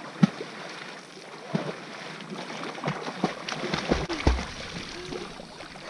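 Water sloshing and lapping right at the camera, broken by several short, sharp splashes from people swimming close by.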